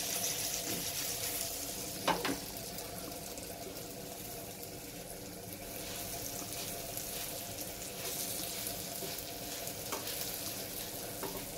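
Surmai (king mackerel) steaks sizzling as they shallow-fry in oil in a pan, a steady hiss. A few clicks of a wooden spatula against the pan, the loudest about two seconds in.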